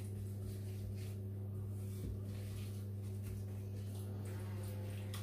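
Gloved hands squishing chicken pieces through a thick, wet yoghurt marinade in a bowl, giving faint, soft, irregular squelches over a steady low hum.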